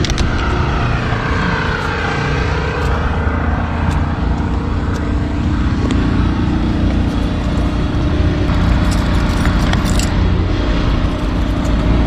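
Portable generator running with a steady low hum. A few sharp clicks about nine to ten seconds in, as an RV storage bay is opened.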